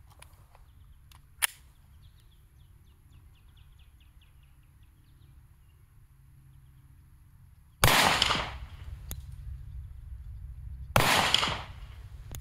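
Two gunshots about three seconds apart, each with a short echoing tail, fired with handloaded 165-grain flat-point full metal jacket rounds over a chronograph. A single sharp click comes a little over a second in.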